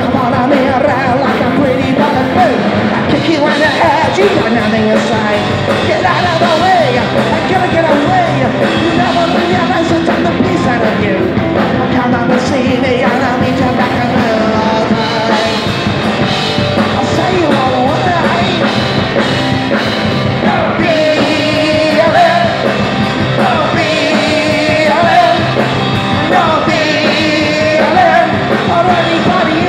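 Punk rock band playing loud live, with bass, electric guitar and drums under a singer's shouted vocals.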